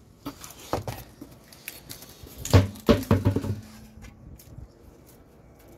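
Knocks and thumps of a Mercury Villager's front wheel and tire being pulled off the hub, with a few light knocks first and the heaviest thuds about two and a half to three and a half seconds in.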